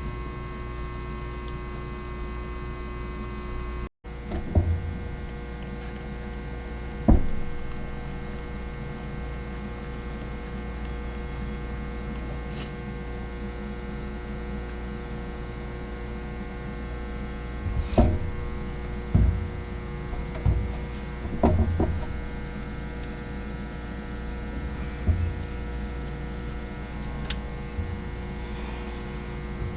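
A steady machinery hum with many fixed tones throughout, broken by a handful of short knocks and taps, several of them clustered between about 18 and 22 seconds in.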